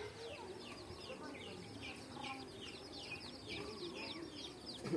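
A group of young chicks peeping together: a dense stream of short, high, falling chirps, several a second and overlapping.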